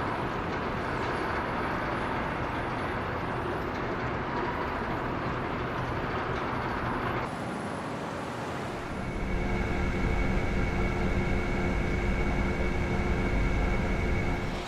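Steady machine noise that changes abruptly about seven seconds in, then becomes a louder steady hum with several held tones over a deep rumble.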